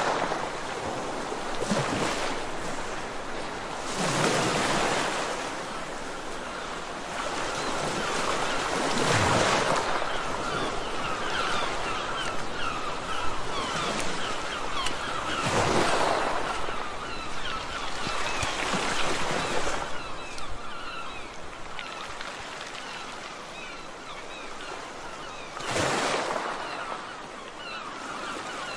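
Waves washing onto a beach, swelling and falling every few seconds, with birds chirping many quick, high calls through most of it.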